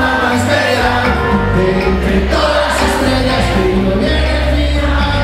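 Live band music: keyboard, upright bass and conga drums playing, with some singing.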